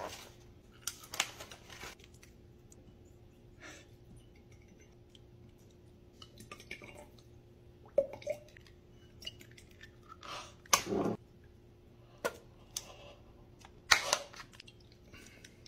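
Scattered clicks, taps and rustles of kitchen items being handled: bottles opened and poured into a glass mason jar, a paper food tray moved, and a plastic mayonnaise bottle squeezed. The sounds come one at a time every second or two over a faint steady hum.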